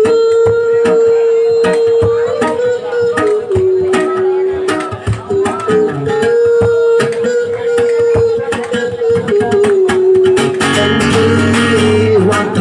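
Live acoustic guitar strumming in quick short strokes, under a long held melody note that twice drops to a lower pitch and comes back.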